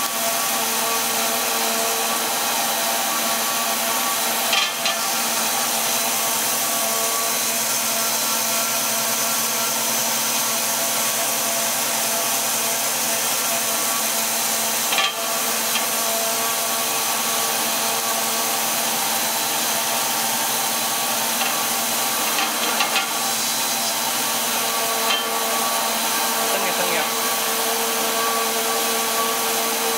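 Two-stage plastic recycling machine running steadily, a constant mechanical hum and hiss with several steady tones in it. A few brief clicks or knocks stand out, the sharpest about halfway through.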